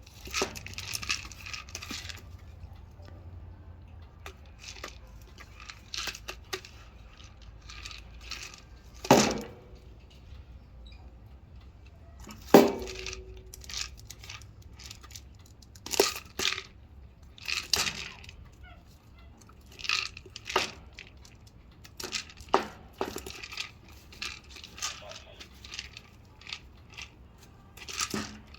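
Irregular knocks and clinks as a mandrill handles and knocks about a Kong enrichment toy, with two louder impacts that ring briefly, about a third of the way in and near the middle.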